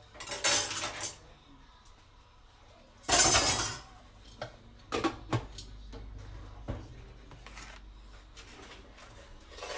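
Serving spoon scraping and clinking against a pot and plate as food is dished up: a scrape shortly after the start, a louder one about three seconds in, then a few light clinks.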